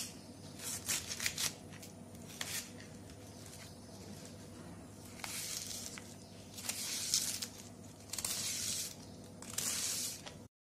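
Kitchen knife slicing through half a head of raw cabbage on a plastic chopping board: a few short crisp cuts in the first seconds, then four longer slicing strokes, each under a second, in the second half.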